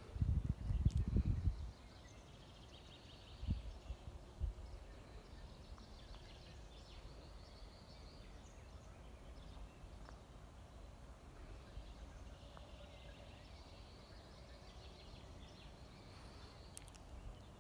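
Faint open-air background with distant birds chirping on and off. Low rumbles come in the first couple of seconds, with two short ones a few seconds later; no machine is heard running.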